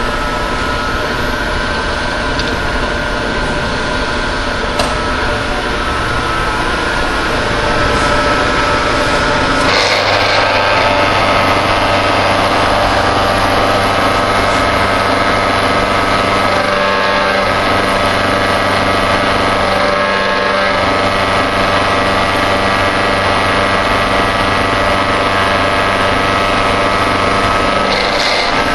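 Ex-Cell-O Model 602 vertical milling machine running, its spindle turning a large milling cutter that takes a cut across the top of a metal block: a steady machine hum with several steady tones. About ten seconds in it gets a little louder, with a stronger low hum.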